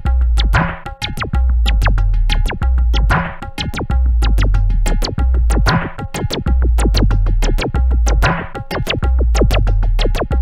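Electronic music from synthesizers and a groovebox: a deep bass line repeating in long notes, held synth tones above it, fast clicking percussive hits, and a hissing burst roughly every two and a half seconds.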